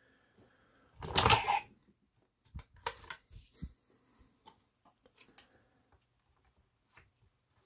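Plastic clicks and clacks from handling the Drag Visor, a toy card-reader gauntlet, as advent cards are loaded into it. A louder clatter comes about a second in, then a few sharper clicks, then only faint ticks.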